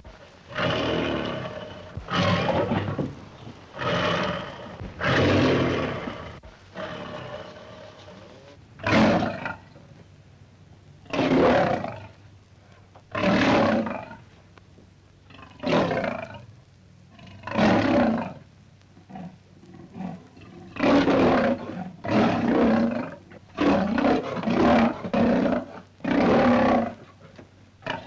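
Lion roaring: a long series of deep, loud roars, each about a second long, repeated every one to two seconds.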